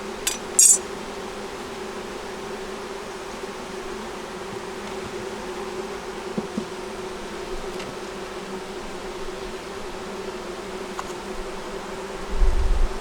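Honey bees buzzing steadily around an open nuc hive, with two sharp clicks about half a second in and a low rumble near the end.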